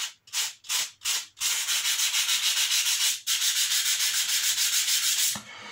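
Sandpaper (80 grit) rubbed by hand over a glued joint in a model bridge's board base to knock down high spots. A few separate strokes, then quick back-and-forth rubbing at about four to five strokes a second, with a brief pause about three seconds in, stopping near the end.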